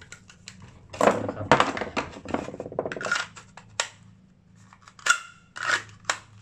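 Hard Kydex plastic holster being handled, with clacks and rattles. A dense run of clacking starts about a second in and lasts about two seconds, followed by a few single sharp clicks.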